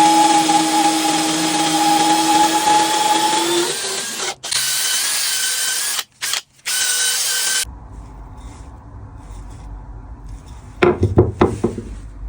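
An electric power tool running with a steady whine, broken by a few abrupt gaps, until it cuts off suddenly about seven and a half seconds in. A quieter low hum follows, with a short cluster of knocks near the end.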